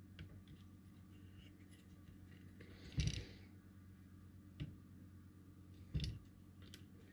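Small clicks and knocks from tools and electronic components being handled at a workbench: two louder knocks about three and six seconds in, with lighter ticks between, over a faint steady low hum.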